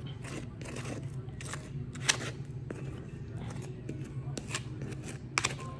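Table knife scraping and clicking as margarine is spread over slices of cornbread: irregular short scrapes and clicks, the sharpest about two seconds in, over a steady low hum.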